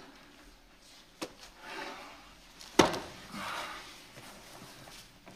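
Soft rustling and a couple of light knocks as someone sits down on a sofa. The sharpest knock comes about three seconds in.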